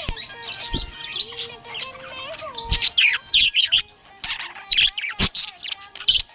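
Budgerigar chirping and warbling in quick, high, pitch-sliding bursts that get loudest through the middle, over a steady background tune.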